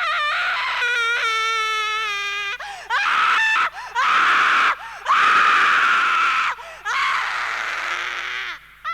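A person screaming over and over: about six long, high screams with short breaks between them, some sliding down in pitch and some harsh and rasping.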